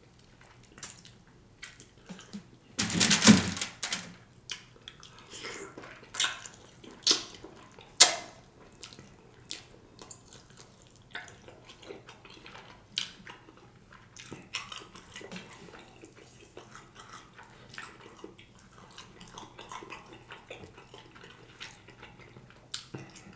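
Close-miked eating sounds from a smoked turkey leg: wet chewing, lip smacks and meat being pulled from the bone, with many small clicks. There is a louder noisy burst about three seconds in and a sharp click about eight seconds in.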